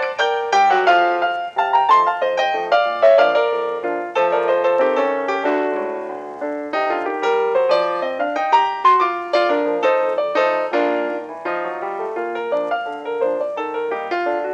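Background piano music, a melody of many quick notes.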